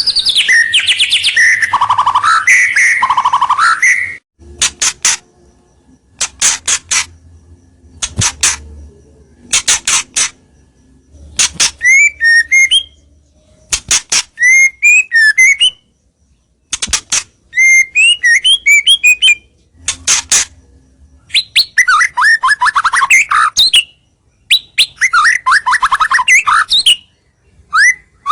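White-rumped shama singing loudly in short phrases with brief pauses between them: fast runs of sharp repeated notes, short rising whistled slurs, and dense rattling trills.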